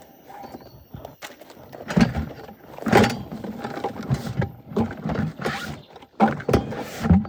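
Irregular thumps and rattling knocks, the loudest about two seconds, three seconds and six to seven seconds in.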